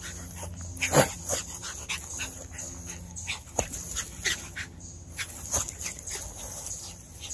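Cairn terrier yipping and barking in short sharp calls every second or so, the loudest about a second in.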